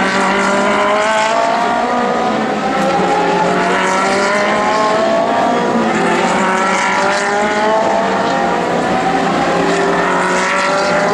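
Ferrari 458 Challenge race cars' naturally aspirated V8 engines running at high revs, their pitch climbing in long rises as the cars accelerate through and out of the corners.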